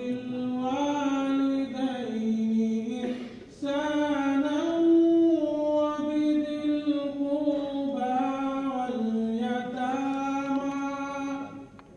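A single voice chanting unaccompanied in long held melodic phrases that step up and down in pitch. There is a short pause for breath about three seconds in, and the voice ends just before the close.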